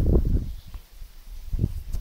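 Low rumbling and a few dull knocks of handling noise on a phone's built-in microphone as the phone is swung around, loudest in the first half second.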